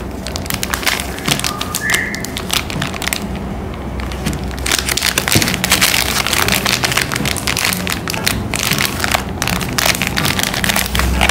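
Plastic candy wrappers crinkling and crackling as they are handled and torn open: a dense, irregular run of crackles that grows thicker about halfway through.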